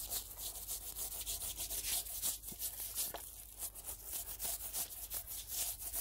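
Boiled red deer skull being scraped and scrubbed clean for a trophy: a rapid run of irregular, scratchy rubbing strokes.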